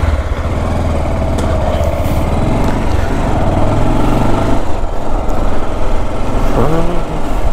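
Motorcycle engine pulling away from a stop and accelerating to about 25 km/h, a steady low rumble that builds slightly as it goes.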